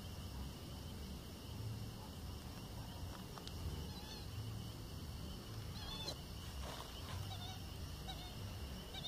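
Short chirping animal calls, several times from a few seconds in, over a steady high hum and a low rumble.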